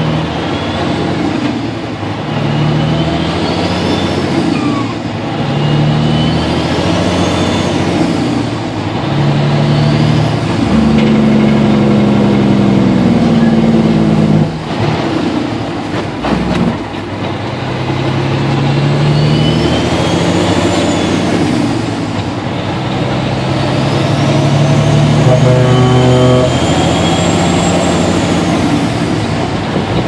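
Turbocharger whistle of a 2006 Peterbilt 379 diesel heard from inside the cab, rising in pitch each time the engine pulls and falling away when it lets off, over steady engine and road noise. The engine note climbs and drops repeatedly as the truck works through the gears, with a short dip in power about fifteen seconds in.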